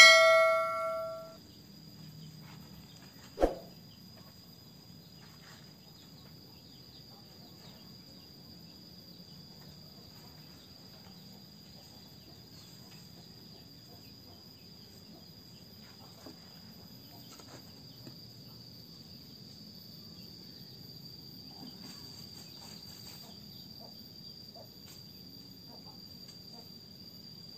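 A subscribe-button sound effect at the start: mouse clicks and a bell ding that fades within about a second. After it comes one short knock, then a steady high-pitched insect drone, typical of crickets, runs on faintly throughout.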